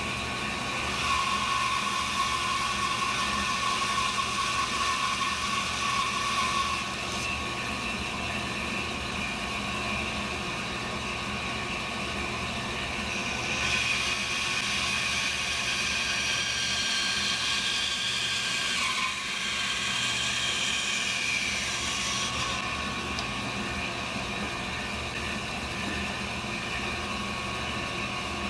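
Band saw running and cutting through a thick block of softwood, a steady machine hum with a whine that shifts in pitch around the middle of the cut.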